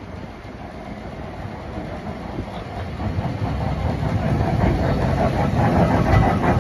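Vintage electric tram rolling past on street rails: a low rumble and clatter of its wheels on the track, growing louder from about halfway through as the car passes close alongside.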